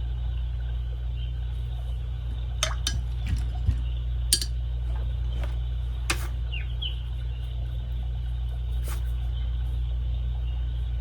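Paintbrush rinsed in a glass water jar and tapped against its rim: a handful of light clinks between about two and nine seconds in, over a steady low hum.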